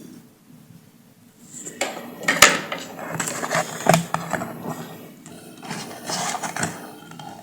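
Clicks, knocks and scraping from hard parts and tools being handled on a workbench, starting about two seconds in, with the loudest knocks near the middle.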